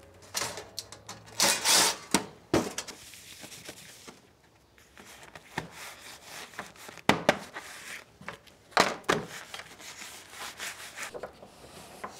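Crinkling, rubbing and scraping of foil-faced heat-barrier insulation being handled, pressed flat and peeled onto a thin sheet-metal box, in a run of short, sharp rustles with louder ones about a second and a half in and around seven and nine seconds.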